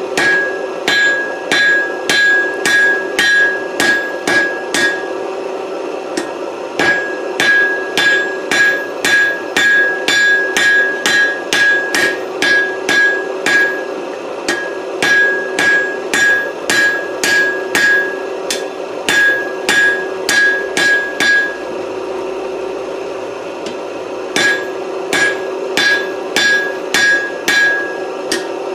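Blacksmith's hand hammer striking a hot 4140 steel bar on the anvil, forging it down in size, at about two to three blows a second with a clear ring on each blow. The blows come in runs with several short pauses between them, over a steady hum.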